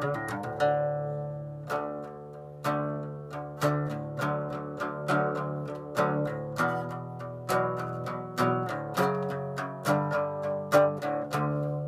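Dean cutaway acoustic guitar played solo: a steady pattern of single plucked notes, each ringing out over a sustained low bass note. It goes briefly softer around two seconds in.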